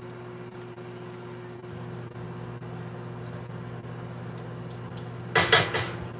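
A steady low hum, then near the end a short clatter of a few sharp knocks: a wooden spoon stirring and knocking against a cast-iron skillet of gravy.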